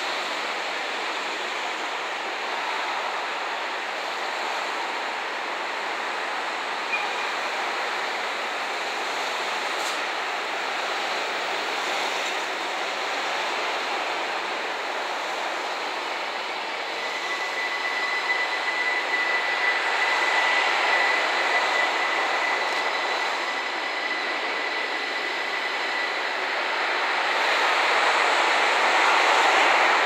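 Slow-moving train, an HD300 hybrid shunting locomotive pushing an EF66 electric locomotive and a container flat wagon, rolling on curved track with steady running noise. From about halfway through, a thin, high wheel squeal on the curve goes on for some ten seconds.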